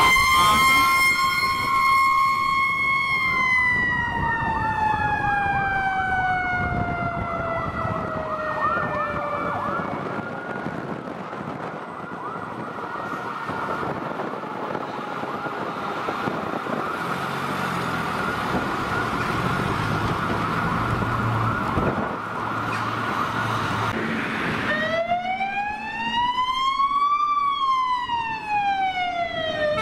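Fire engines passing on an emergency run with electronic sirens: a wail sliding down in pitch over the first ten seconds, overlapped by a fast warbling yelp, then a steadier high siren tone with truck engine rumble underneath. Near the end a new wail rises and falls once.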